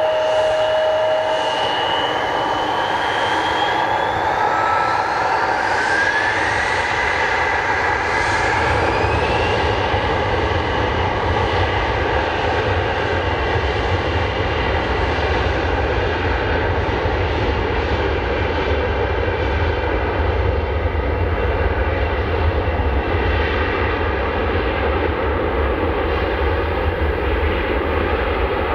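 Bombardier CRJ-900's two rear-mounted GE CF34 turbofans spooling up to takeoff thrust, with a rising whine over the first ten seconds or so. Then a steady jet roar with a deep rumble as the airliner accelerates along the runway on its takeoff roll.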